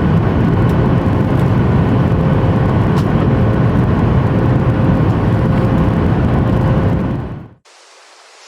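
Steady in-flight cabin noise of a Boeing 737 MAX 8, the drone of its CFM LEAP-1B engines and the rush of air past the fuselage, fading out about seven seconds in.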